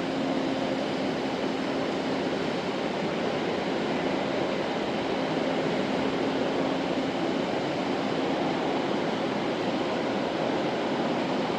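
Rain hitting the roof of a large hall, heard from inside as a steady, even hiss, with a faint low hum under it for the first several seconds.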